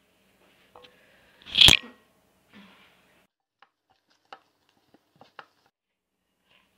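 Dough being kneaded by hand in a glass bowl: one loud crinkly rustle about a second and a half in, then sparse soft squishes and clicks.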